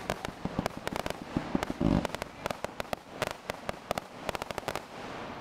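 Fireworks crackling and popping in a rapid, irregular string of sharp reports, with one heavier boom about two seconds in.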